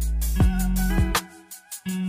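Outro music with a beat: deep drum hits under a held bass line and a melody, dropping out briefly about halfway through.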